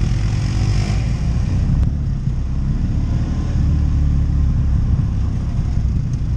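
ATV engine running as the quad is ridden along a trail, with a brief rise in engine pitch in the first second.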